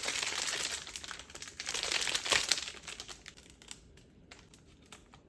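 Plastic wrapping of a collector-card pack crinkling as it is handled and opened, loudest about two seconds in, then dying down to a few light clicks.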